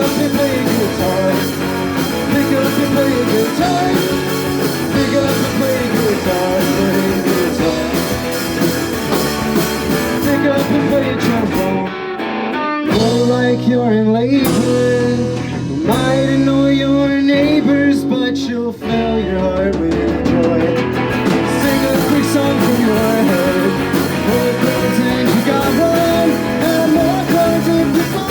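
Live rock band playing, with electric guitars, bass guitar and drums. About twelve seconds in, the drums and cymbals drop out for several seconds, leaving held guitar and bass notes. The full band then comes back in.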